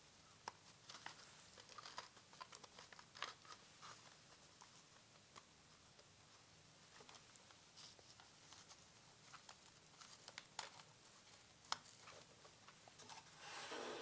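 Near silence with faint, scattered clicks and rustles of hands working faux fur and fabric hooks onto an animatronic bird's body shell.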